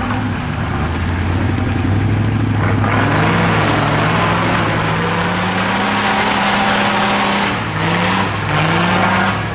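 A 4x4 truck's engine revving hard, its pitch climbing slowly over several seconds, then dropping briefly twice near the end and climbing again, with a rushing noise over it.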